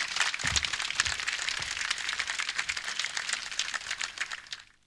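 Audience applauding with a dense patter of claps, fading out near the end.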